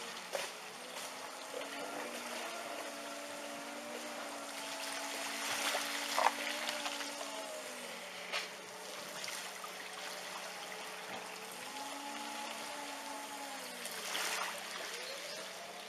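Floodwater running and trickling through a flooded street, under a wailing tone that holds, fades away about eight seconds in and rises again a few seconds later.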